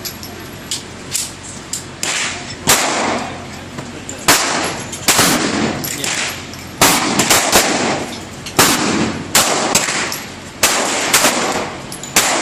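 Gunshots at a shooting range: more than a dozen single shots fired at irregular intervals, some loud and close, others fainter, each with a short echo.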